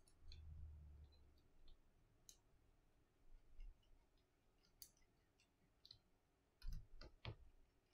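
Faint, scattered clicks and light taps of small tools and parts being handled on an opened smartphone's frame, with a soft low bump near the start and a couple of louder knocks about seven seconds in.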